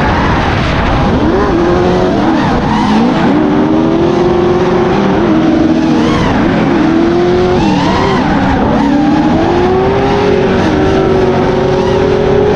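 Drift cars' engines revving up and down with tyres squealing, the engine notes rising and falling again and again.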